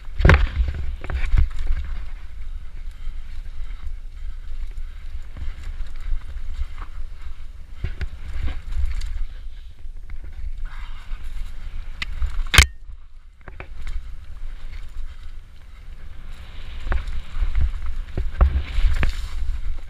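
Mountain bike descending a rough dirt trail: a steady low rumble of wind and vibration on the bike-mounted camera, broken by frequent knocks and rattles as the bike hits bumps and roots, with one sharp crack about twelve seconds in.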